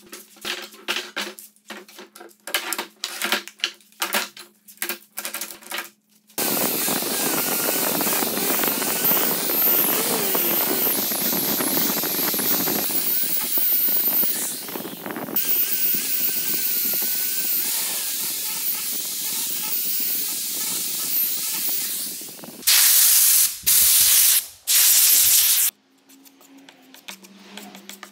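Knocks and clicks as a clamped wooden slab is handled. Then an angle grinder fitted with a sanding pad runs steadily against the wood surface for about sixteen seconds. Near the end come three short, louder bursts of hiss.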